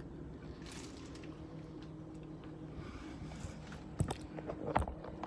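A steady low hum inside a delivery van's cab, with a few sharp knocks and rustles from the phone being moved about four seconds in.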